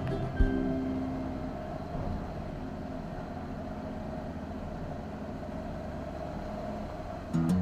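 A vehicle running steadily, an even drone with no rhythm. Background music ends about half a second in and starts again near the end.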